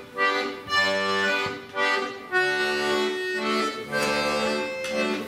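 Button accordion playing a tune, melody and bass chords together, the bass notes changing about every half second.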